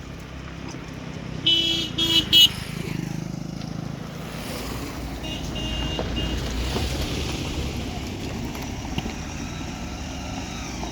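Road traffic: a vehicle horn beeps three times in quick succession about a second and a half in, and a fainter horn sounds around five seconds. Under it, the engine rumble of passing vehicles swells and fades.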